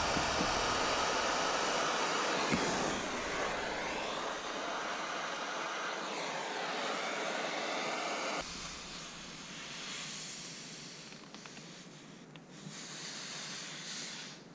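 Acetylene brazing torch hissing steadily as it heats copper refrigerant line joints. About eight seconds in the sound drops abruptly to a quieter hiss.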